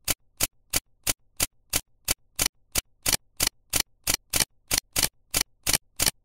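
Sharp ticks repeating evenly, about three a second.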